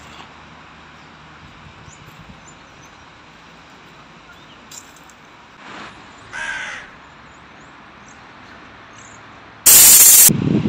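Steady faint outdoor background with two crow caws about six seconds in. Near the end comes a sudden, very loud harsh noise burst lasting about half a second: a jump-scare sound hit.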